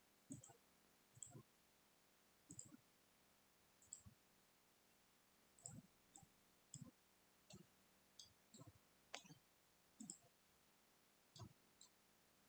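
Computer mouse buttons clicking: about a dozen faint, separate clicks at an irregular pace, as the software is being worked.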